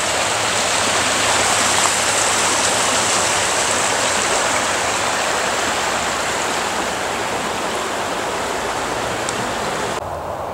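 Steady rush of falling and cascading water from a small mountain waterfall and creek. About ten seconds in it cuts abruptly to a duller, less hissy noise.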